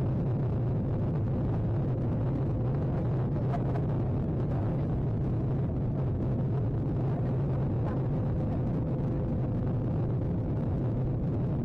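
Steady deep roar of a Ryanair Boeing 737's jet engines at take-off power, heard from inside the passenger cabin, with a faint steady hum above it.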